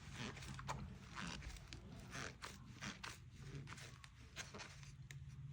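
Goalkeeper gloves and their packaging being handled: a string of short rustles and scrapes with a few sharp clicks.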